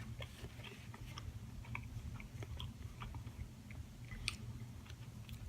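Quiet chewing with soft wet mouth clicks, a person eating a sausage, egg and croissant sandwich.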